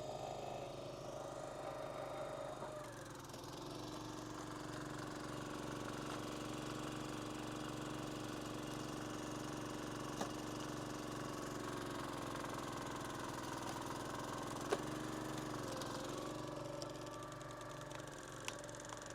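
Engine of a Huskee 22-ton log splitter running steadily while maple rounds are split. Its note drops about three seconds in and comes back up around sixteen seconds, and there are three short sharp cracks.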